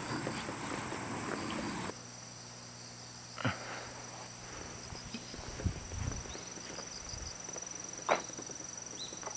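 Insects singing in a steady high-pitched drone, its pitch shifting suddenly about two seconds in, with two short sharp sounds about three and a half and eight seconds in.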